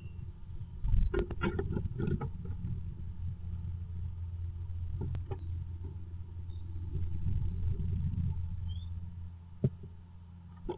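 A great tit entering a wooden nest box with a cluster of knocks and scratches about a second in, then scratching and rustling about in the moss nest material, with single knocks near the middle and near the end. A steady low hum runs underneath.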